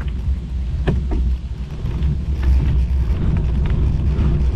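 Wind rushing over the camera microphone and a steady low rumble while riding a bicycle, with two light clicks about a second in.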